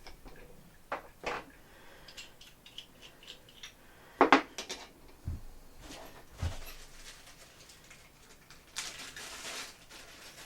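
Parts of a carbon fibre camera jib arm being handled and fitted by hand: scattered clicks and light clinks, a sharper knock about four seconds in, a couple of dull thumps just after, and a short scraping rustle near the end.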